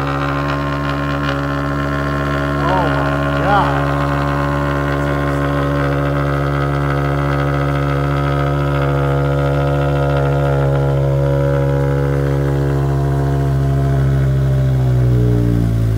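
Volvo S40's five-cylinder engine idling fast just after a cold start, through a straight-piped exhaust with the muffler and resonators removed: a steady, loud exhaust drone. Near the end the engine note begins to change.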